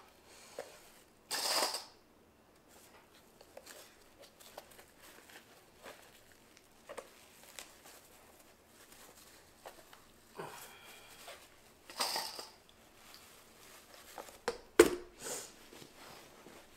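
Plastic wrap crinkling and a felt hat hood rustling in scattered bursts as hands grip, stretch and pull the hood over a hat block, with a sharp knock about three-quarters of the way through.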